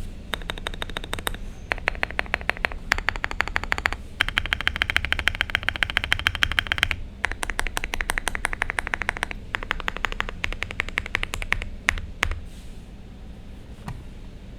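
Meletrix Zoom75 mechanical keyboard with Boba LT switches and Akko ASA-profile keycaps being typed on fast, rapid keystroke clacks in several bursts with short pauses, thinning to a few single keystrokes near the end.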